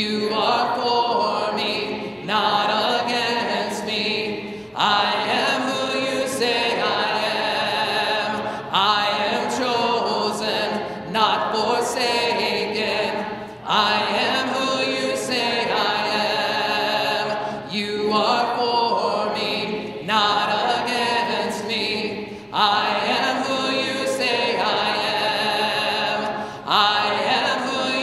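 A congregation singing a hymn a cappella, many voices together in harmony without instruments, in phrases of two to four seconds with short breaths between them.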